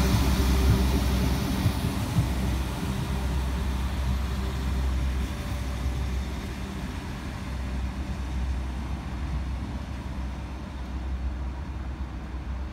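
Irish Rail 22000 Class diesel multiple unit pulling away, its diesel engines giving a low steady drone. The rush of wheels on rail from the passing cars dies away in the first couple of seconds, and the engine drone then fades slowly as the train moves off.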